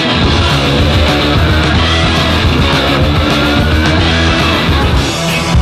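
Rock music with guitar.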